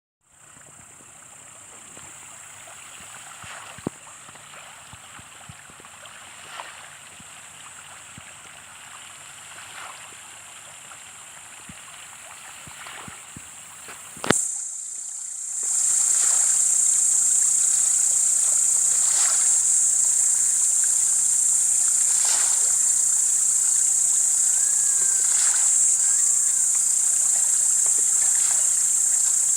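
Fish splashing at the water's surface as they feed, in short scattered splashes every few seconds, over a steady high-pitched insect chorus. A sharp click comes about halfway through, after which the insect chorus is much louder.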